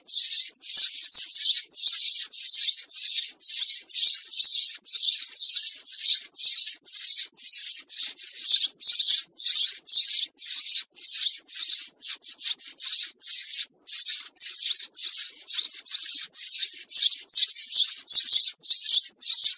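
House sparrow chirping without a break: high chirps in quick bursts, about two or three a second.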